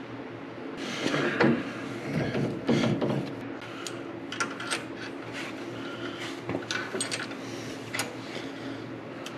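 Metal clatter and scraping as a Pitman arm is worked onto the splined output shaft of a steering gearbox, followed by a few light clicks as a washer and nut are fitted onto the shaft by hand. A steady low hum runs underneath.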